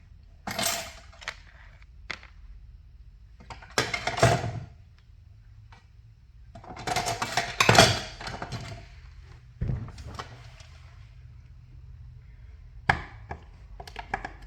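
Hand tools knocking and scraping at a wall outlet, in several short clattering bursts a few seconds apart; the longest is around seven to eight seconds in.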